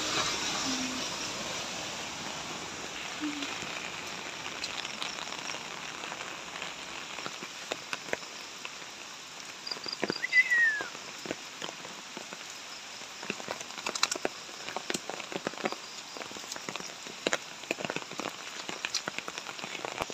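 Steady hiss of rain falling on grass and leaves, with scattered sharp taps through the second half and a brief falling squeak about halfway through.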